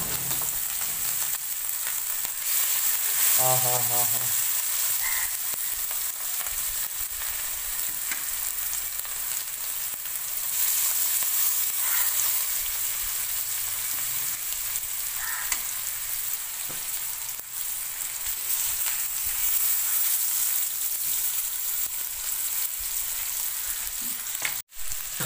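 Masala-marinated fish steaks shallow-frying in hot oil on an iron tawa: a steady sizzle that cuts out briefly near the end.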